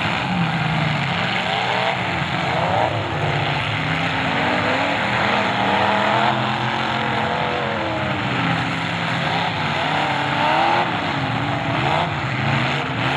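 Many demolition derby cars' engines revving at once, their pitches rising and falling over one another as the cars accelerate and back up across the dirt.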